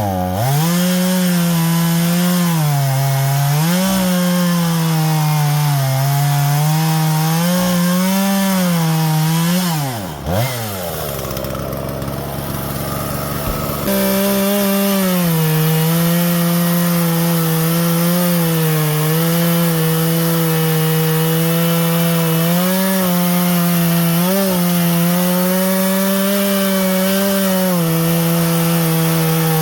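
Husqvarna 120 Mark II two-stroke chainsaw cutting wood at full throttle, its engine note sagging and picking up again as the chain bites and clears. About ten seconds in the engine drops back and runs lower and rougher for a few seconds, then loud full-throttle cutting starts again abruptly.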